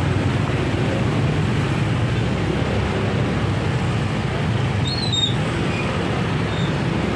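Motor scooter engines running as scooters ride along a narrow street, over a steady din of traffic. A brief high squeak cuts through about five seconds in.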